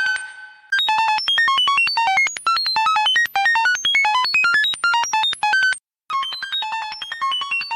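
A rapid stream of short synthesized electronic beeps, about nine a second, each at a different, randomly jumping pitch. Near the start a single held tone fades out before the beeping resumes, and the stream breaks off for a moment about six seconds in.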